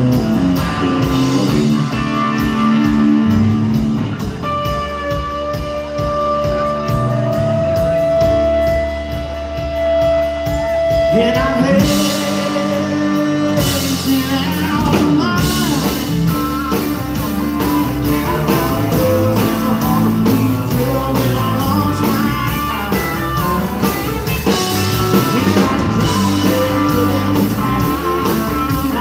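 Live band playing a song, with acoustic and electric guitars, fiddle, bass and drum kit, and a voice singing over them. A long high note is held in the middle before the full band comes back in.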